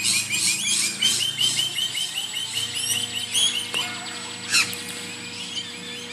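Birds chirping in quick runs of short, high repeated notes, with one louder sharp call about four and a half seconds in.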